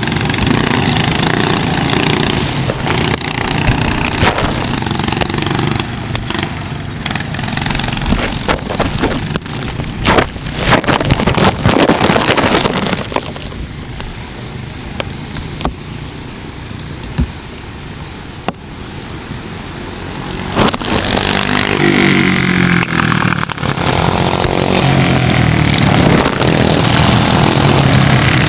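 Go-kart engine running hard with a loud rush of wind and crackling. About 13 seconds in it drops back to a lower, quieter note for several seconds, and then the engine pitch climbs again as the kart accelerates.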